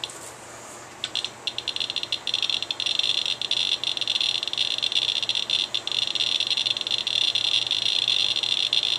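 Radiation Alert Inspector EXP Geiger counter clicking as its pancake probe is held over a uranium sample. The clicks start about a second in and quickly speed up into a dense, near-continuous chatter, the sign of a count rate of several hundred counts per minute.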